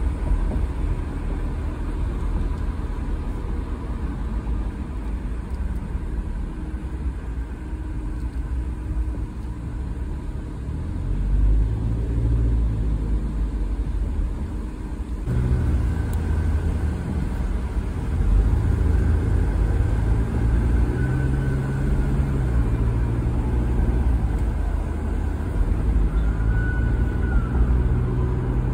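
A car driving in city traffic: a steady low rumble of engine and road noise, with the engine note growing stronger about halfway through as it speeds up.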